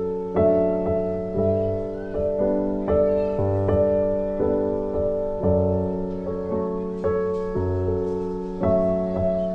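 Background piano music: notes and chords struck at a steady, unhurried pace, each one fading away.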